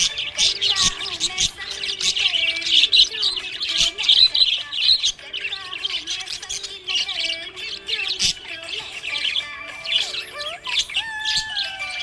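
Budgerigars chirping: a dense, unbroken stream of short, high chirps and squawks overlapping one another.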